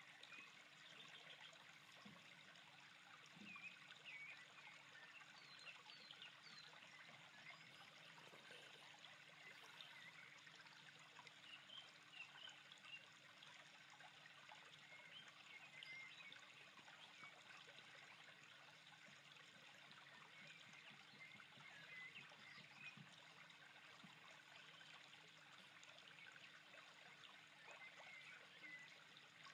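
Near silence: faint water trickling and lapping, with scattered tiny high-pitched chirps and a faint steady low hum.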